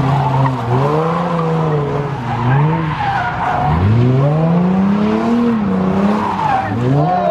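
Car engine revving up and falling back over and over, several long rises and drops in pitch, with tyres squealing and skidding as in a burnout or donuts.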